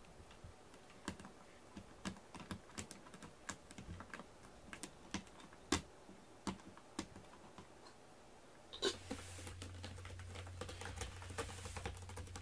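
Cats moving about, with scattered light clicks and scratches from paws and claws at irregular intervals. About nine seconds in, a steady low hum and a rustling noise set in.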